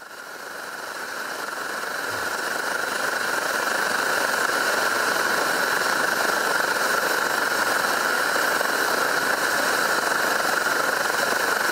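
Pressurised liquid-fuel camping stove burning under a pot of water: a steady rushing hiss that fades in over the first few seconds and then holds level.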